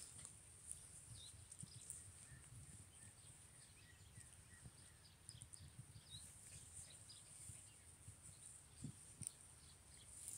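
Near silence: faint outdoor ambience with a steady high hiss and scattered faint bird chirps.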